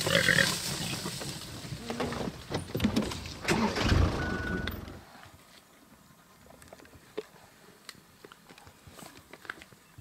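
Warthogs grunting and rustling through the bush, loud for about five seconds with a heavy thud near the end of that stretch. Then comes an abrupt drop to faint clicks and crunching from spotted hyenas feeding on a carcass.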